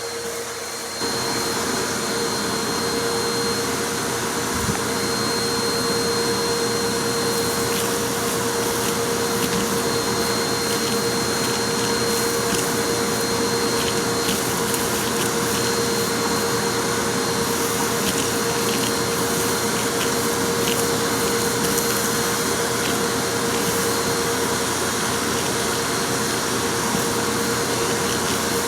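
Vacuum cleaner running with a steady motor whine, louder from about a second in, with scattered small clicks and rattles of crunchy noodles and coins being sucked up.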